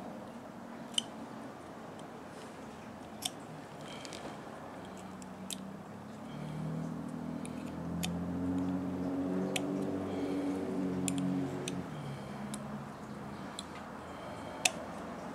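Scattered light clicks and taps of 3D-printed plastic parts being handled, over V8 engines in the background, whose drone swells louder for several seconds in the middle and then fades back.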